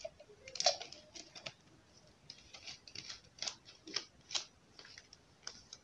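Plastic spray bottle being handled as its spray top and dip tube are fitted: a series of irregular sharp clicks and taps of plastic on plastic.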